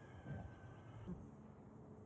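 Near silence: quiet outdoor background, with two faint soft sounds about a third of a second and a second in.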